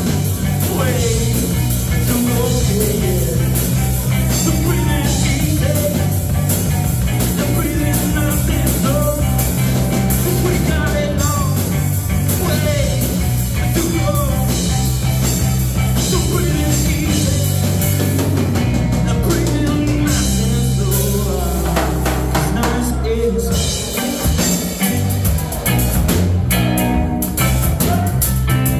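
Live rock band playing: electric guitar, electric bass and drum kit, heard loud from the audience in a small club. The bass and drums drop out briefly about two-thirds of the way through, then come back in.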